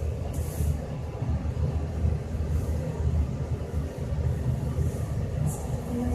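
Elevator car travelling up its shaft: a steady low rumble.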